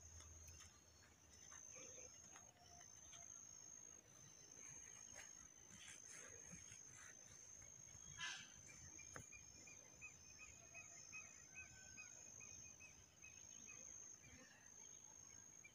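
Faint insects trilling in open country: a high, steady trill throughout, joined about ten seconds in by a lower, pulsing trill.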